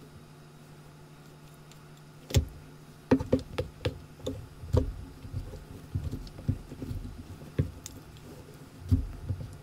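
Chopsticks clicking and knocking against a plastic takeout tray and a glass bowl while sticky, cheese-covered rice cakes are moved between them: an irregular string of sharp clicks and soft thumps that starts about two seconds in, after a faint steady hum.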